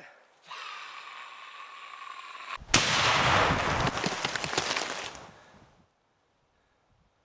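A steady high held tone for about two seconds, then, after a brief break, a sudden loud crackling blast of gunfire or explosion sound effect that fades out over about three seconds.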